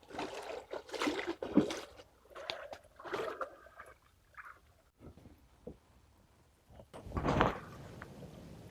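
Scattered knocks, clicks and rustles of people moving about and handling gear in a small boat, with one louder knock about seven seconds in.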